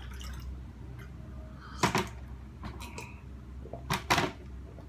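Water pouring from a kettle into a ceramic mug trails off at the start. Then come short sharp sounds of drinking from the mug, in two pairs about two and four seconds in.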